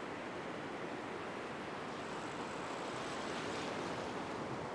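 Surf washing steadily onto a sandy beach, small waves breaking and foaming in the shallows.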